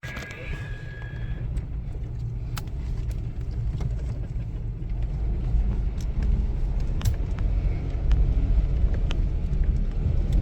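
Nissan R50 Pathfinder 4x4 crawling up a rutted dirt trail: a low engine and drivetrain rumble that grows louder, with scattered sharp knocks and clicks. A brief high steady tone sounds at the start.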